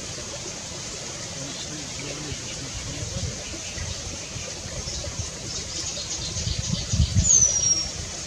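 Steady low rumble that swells about seven seconds in. Near the end comes one thin, high whistle that falls in pitch, the drawn-out 'tsiiu' call of a Eurasian penduline tit.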